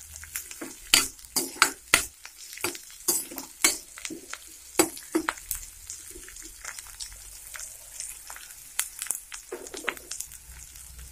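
Sliced onion and green chillies sizzling in hot oil in a stainless steel kadai, while a metal spoon stirs and scrapes against the pan in quick, irregular strokes.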